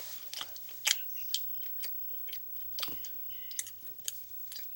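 Chewing and mouth noises while eating: a run of irregular wet clicks and smacks, a few a second, with one louder click about a second in.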